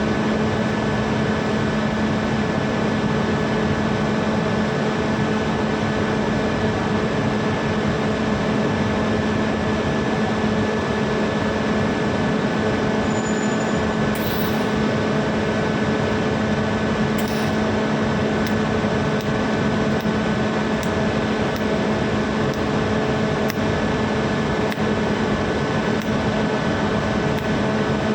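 Steady machine hum over an even hiss, with no change in level.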